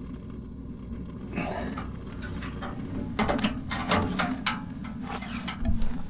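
Knocks, clicks and rustling of things being handled, over a steady low rumble, with a heavy thump near the end.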